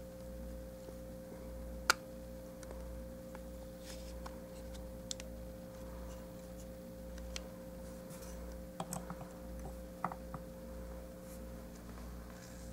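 Small plastic clicks and taps from a Transformers Beast Wars Airhammer action figure being handled, its leg joints and hinged feet moved and the figure set down on a table. The sharpest click comes about two seconds in, a few more around nine to ten seconds in, over a faint steady low hum.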